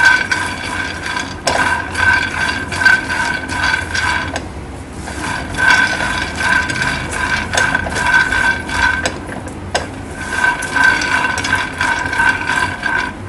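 Raw peanuts dry-roasting in a nonstick pan with no oil, rattling and clicking against the pan and each other as a slotted spatula stirs them; the skins are starting to crack. Under the clatter a steady high whine drops out twice for about a second.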